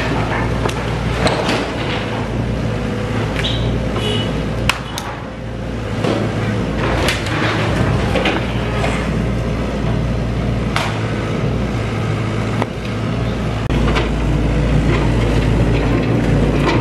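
SANY crawler excavator's diesel engine running steadily under load while it demolishes the building. Scattered cracks and crashes of breaking masonry, roof tiles and timber come throughout.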